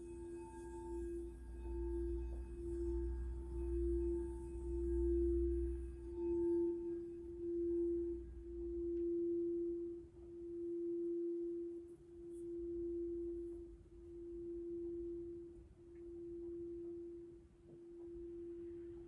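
Crystal singing bowl sounding one steady tone with a slow wavering pulse. The pulse slows as the tone swells and then fades gradually. A low hum beneath it stops about halfway through.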